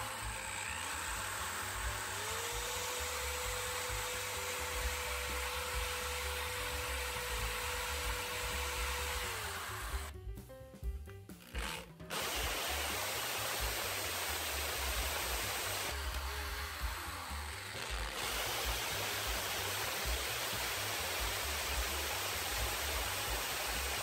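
Corded hammer drill with a masonry bit boring into brick in hammer mode: a steady harsh noise with a motor whine. It stops about ten seconds in and starts again about two seconds later.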